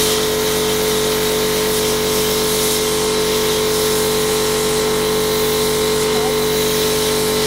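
Kärcher pressure washer running with a steady motor-pump hum under the loud hiss of its water jet, blasting the scales off a pike on a wooden board.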